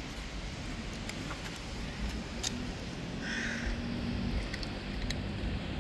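Steady low outdoor rumble, with one short harsh animal call about three seconds in.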